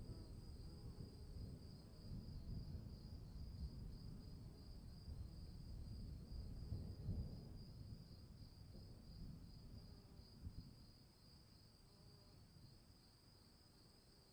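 Low rumble of distant thunder that swells about seven seconds in and dies away over the last few seconds, over a steady, high, pulsing chirring of crickets.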